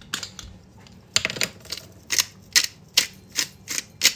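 Hot chili pepper flakes dispensed from a spice jar over a glass bowl: a run of sharp, regular clicks, about two or three a second, starting about a second in.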